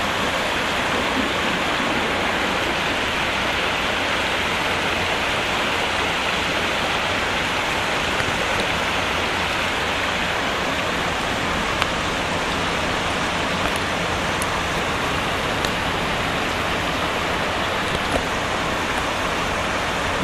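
Muddy runoff streaming steadily down a road buried in landslide debris: a continuous even rush of water, with a few faint clicks scattered through it.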